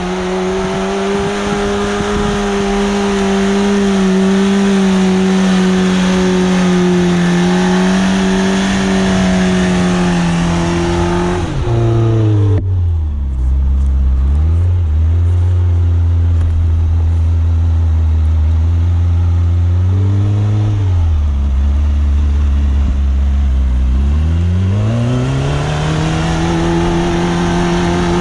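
Suzuki SJ410's engine running hard under load while wheeling through deep snow, held at high revs, then dropping sharply to low revs about twelve seconds in, with a couple of small blips. Near the end it climbs back up to high revs.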